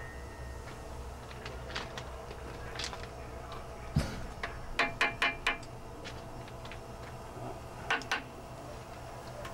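A hammer tapping the steel rods of a DR class 01.5 steam locomotive's running gear: one knock about four seconds in, a quick run of about five ringing taps, then two more near the end. This is the sound test for cracks in the connecting rod; a clear ring means the rod is sound.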